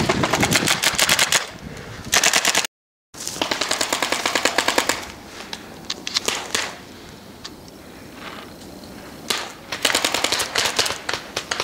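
Paintball markers firing rapid strings of shots in volleys, with a quieter spell of scattered single shots in the middle and another long volley near the end. The audio drops out completely for a moment about three seconds in.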